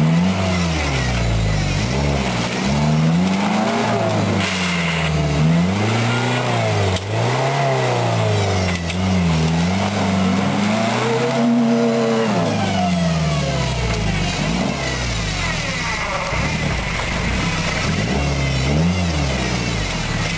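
Daihatsu Rocky 4x4's engine revving up and down over and over as it claws through a deep muddy rut. After about 13 seconds it settles to steadier running.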